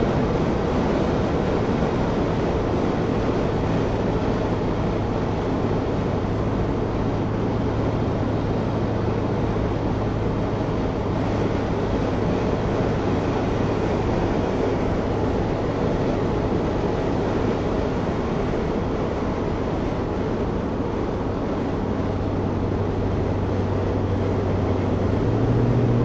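1968 Chevelle Nomad wagon cruising on the road, heard from inside the cabin: a steady engine drone under even wind and road noise, the engine note rising slightly near the end.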